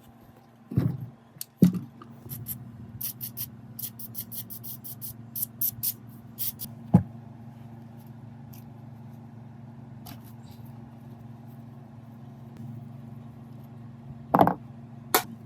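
Workshop work sounds: a few sharp knocks and a run of quick light clicks over a steady low hum.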